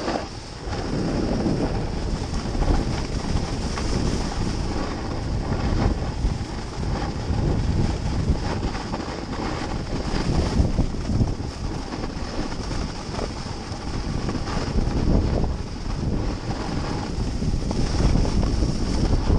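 Wind rushing over the microphone of a pole-held action camera while skiing downhill, a steady, low buffeting noise mixed with the hiss of skis sliding on snow.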